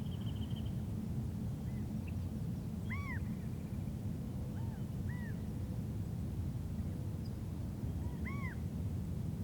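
Forest birds calling: short, arching, rise-and-fall calls repeated every few seconds, the two loudest about three seconds in and near the end, with a brief rapid trill at the very start. A steady low rumble underlies them.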